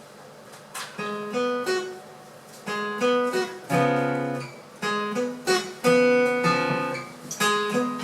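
Acoustic guitar playing picked notes and chords, starting about a second in.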